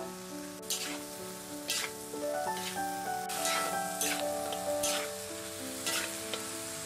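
Stir-fry sizzling in a metal wok as sliced baby corn and pork fry, with several sharp scrapes and knocks of a metal spatula against the pan. Background music with a melody plays throughout.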